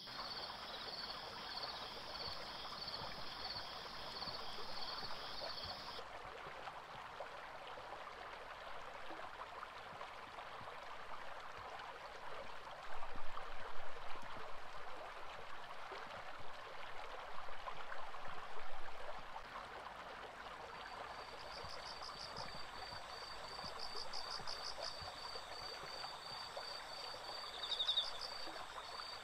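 Stream water rushing steadily, swelling louder for a while around the middle. Insects chirp in rapid pulses over it for the first few seconds, stop abruptly, and chirp again through the last third.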